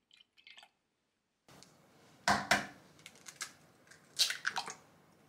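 An egg being cracked by hand into a glass measuring jug of milk: sharp taps about two seconds in, then a louder crunching of shell near the end.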